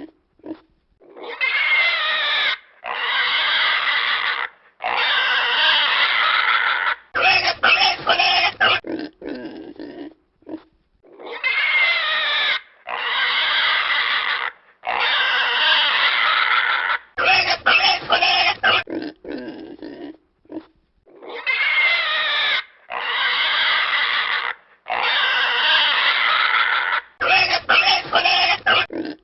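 Pig squealing: three long, wavering squeals of a second or two each, then a quick run of short squeals and grunts. The same sequence repeats about every ten seconds, three times over.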